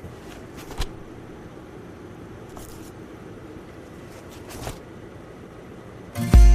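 Low background hiss with a few faint clicks and rustles, then music starts loudly near the end with a heavy bass note and pitched instruments.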